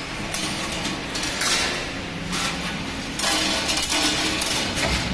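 2D CNC wire bending machine feeding and bending steel wire: steady mechanical running with low hums, metal clinks, and several spells of hissing noise a second or two long.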